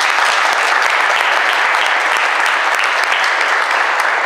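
Audience applauding, a steady dense clapping of many hands.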